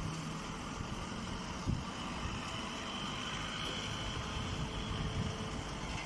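Hydraulic press baler's motor and hydraulic pump running with a steady hum and rumble, with a single knock about two seconds in.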